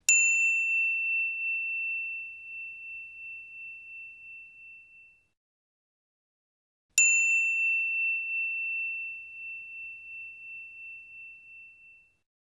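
A small bell ding, struck twice about seven seconds apart. Each strike rings out with a slight waver and fades away over about five seconds.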